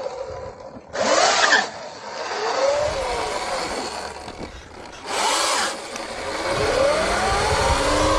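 Electric dirt bike's motor whine and 219 chain drive rising and falling in pitch with the throttle, then climbing steadily as it accelerates near the end. Two brief loud rushes of noise come about one and five seconds in.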